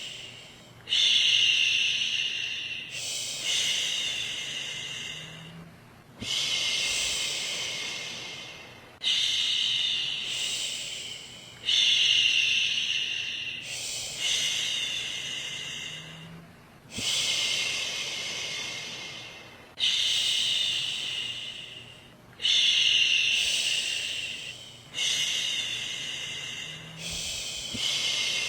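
A woman shushing a baby with long "shhh" sounds, about ten in a row, one every two to three seconds. Each starts sharply and trails off.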